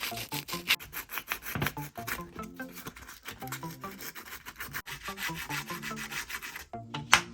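Rapid back-and-forth scraping or rubbing strokes, several a second, over background music with a stepping melody. A sharp click near the end.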